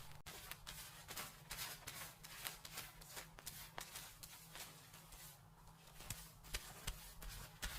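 Hands scrubbing and rubbing a person's hair and scalp during a dry hair wash: a run of irregular, short, scratchy rustles, several a second.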